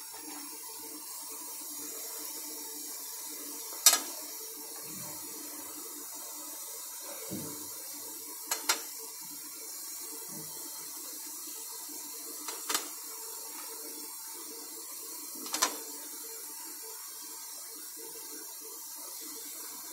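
Steady hiss of water boiling in the pot under an aluminium steamer plate, with a few sharp clicks as plastic lids filled with rice-papad batter are set down on the metal plate.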